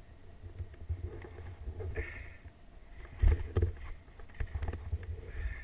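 Skis sliding and scraping over thin, patchy snow, with a low rumble and irregular knocks and thumps as the skis ride over bumps. The loudest two thumps come close together a little past three seconds in.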